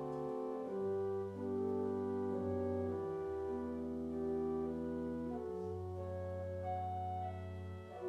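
Slow keyboard music with long held chords, shifting to a new chord every second or so.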